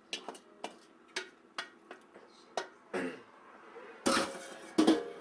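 Spoon clinking and tapping against a pot while adding spinach to cheese sauce: a run of light clicks about twice a second, then two louder clatters near the end.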